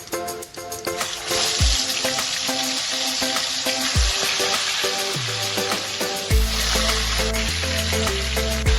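Food frying in hot oil in a pan: a steady sizzle that starts about a second in, over background music.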